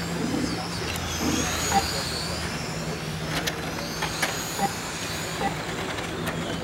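Several 1/10 electric touring cars with 21.5-turn brushless motors whine past on the track, their pitch rising and falling as they accelerate and brake. A few sharp clicks are heard in the middle.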